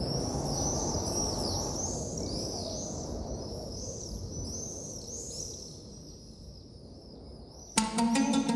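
Many birds chirping in quick, overlapping high calls over a low, even city hum, both fading toward the end. Near the end a plucked string instrument starts playing.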